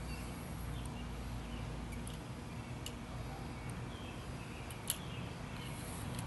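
Faint steady outdoor rumble with a few light handling clicks from a bicycle helmet and the bike's controls, and one sharp click about five seconds in.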